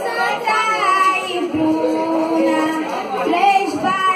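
A boy singing a verse into a microphone, his voice sliding and wavering between notes, with one long held low note in the middle.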